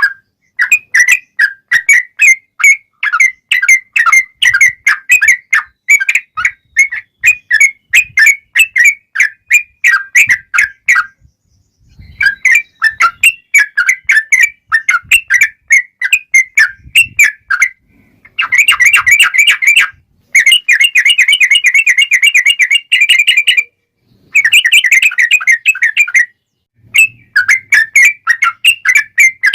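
Yellow-vented bulbul (trucukan) singing a long run of rapid, loud chirping notes, broken by a few short pauses, with faster, denser runs in the second half. It is a recorded song played as a lure to get other bulbuls to answer.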